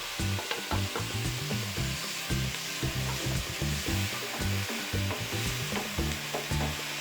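Chopped onion, capsicum and tomato sizzling in hot oil in a pan as they are stirred, a steady frying hiss with irregular low knocks.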